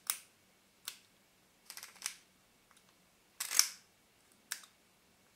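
Small metallic clicks from the aperture mechanism of a Nikkor-P Auto 105mm f/2.5 lens worked by hand, the spring-loaded aperture lever and ring snapping between settings. Single sharp clicks come a second or so apart, with a short cluster about two seconds in and a longer, louder rasp of handling about three and a half seconds in.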